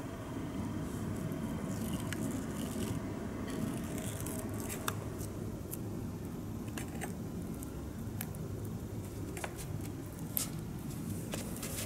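Masking tape being handled on a plastic model car body: lifted with tweezers, stretched and pressed down, giving scattered small clicks and crinkles over a steady low hum.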